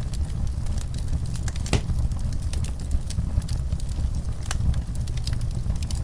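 Wood fire crackling in a fireplace: irregular sharp pops and snaps over a steady low rumble, with one louder pop a little under two seconds in.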